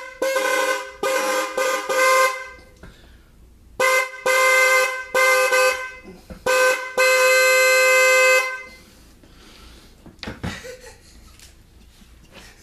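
A pair of Fiamm car horns sounding together as a two-note chord inside a house: a run of short honks, a pause of about a second and a half, then more honks ending in one long blast of about a second and a half.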